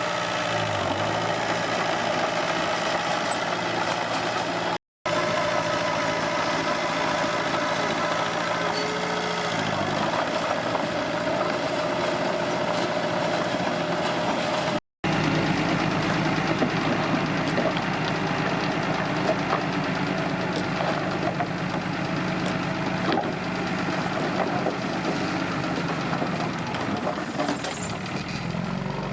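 Komatsu D21P bulldozer's diesel engine running steadily, with slight changes in engine speed. The sound cuts out completely for a moment twice.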